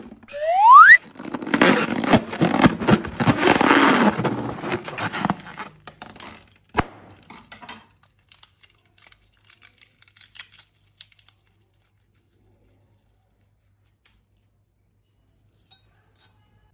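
A short rising squeak, then several seconds of crinkling, scraping handling of balloons and slime that fades out. A single sharp click follows, then a few faint ticks.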